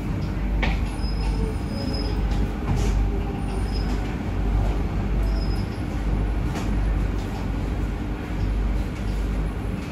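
Steady low rumble inside the passenger car of an SMRT C151B metro train, with a few faint clicks and brief faint high squeaks.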